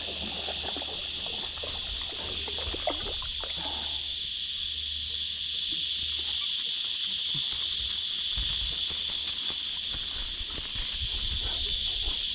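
A steady chorus of insects buzzing, with a higher, faster-pulsing buzz coming and going above it, over a low steady hum.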